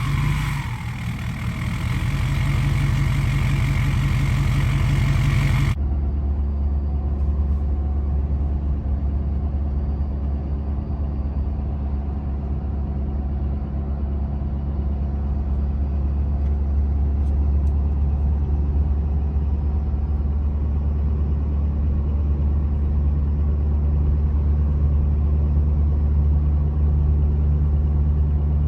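2015 Ford F250's 6.7 Powerstroke V8 diesel idling with a whine falling away as it settles from a light rev. About six seconds in it cuts to the cab while cruising, where the 4-inch DPF-back exhaust with no muffler or resonator makes a steady low drone mixed with the hum of the all-terrain tires.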